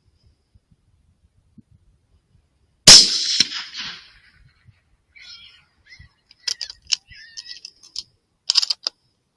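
A single rifle shot about three seconds in, a sharp crack that rings off over about a second. A scatter of sharp clicks and rustles follows.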